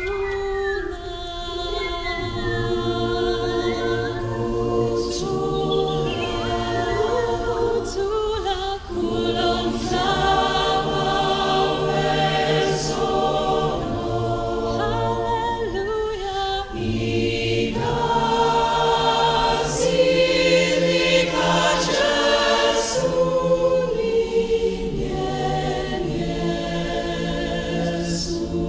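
A choir singing a cappella, holding chords in several parts, with gliding high notes over them in the first few seconds. The voices swell louder about twenty seconds in.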